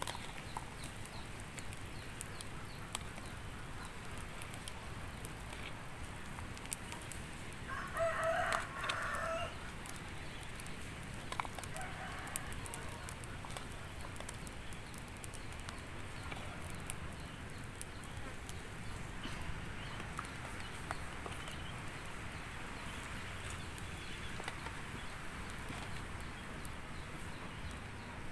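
A rooster crows once, about eight seconds in, a pitched call lasting about a second and a half, with a weaker call a few seconds later. Scattered faint clicks sound over a steady background hum.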